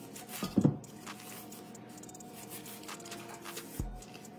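Cream cheese wrapper crinkling and rustling as the soft cream cheese is squeezed out into a bowl of confectioner's sugar, with a thump about half a second in and a fainter knock near the end.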